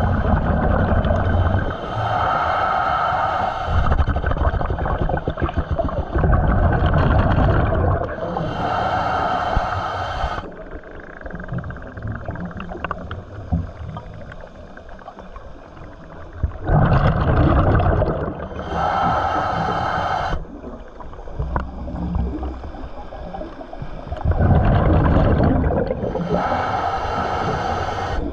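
Diver breathing through a scuba regulator underwater: rumbling bubble bursts on each exhale alternate with a whistling hiss on each inhale. The breathing pauses for several seconds about halfway through, then resumes.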